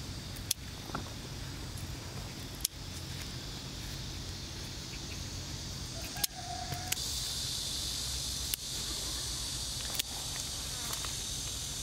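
Steady high-pitched insect trilling, louder from about seven seconds in, over a low hum, with a few sharp clicks scattered through it.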